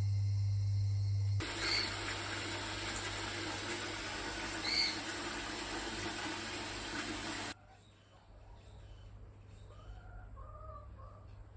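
Water running in a steady rush that starts and stops abruptly, with two short bird chirps over it. A low steady hum comes before the rush, and a few soft bird calls follow it.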